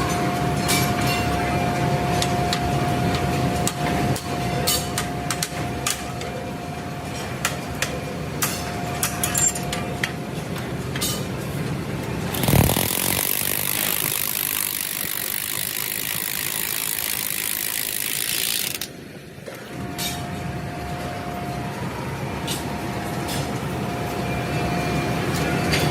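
Leaf-spring factory machinery running with a steady hum and scattered metallic clicks and clanks. About halfway in, a loud hiss starts, lasts roughly six seconds, and stops suddenly.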